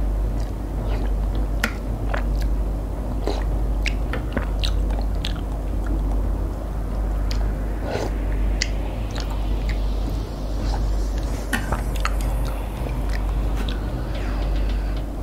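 Close-up eating sounds: a person chewing and slurping Korean instant ramyun noodles, with scattered sharp clicks of a metal spoon and wooden chopsticks against the bowl, over a steady low hum.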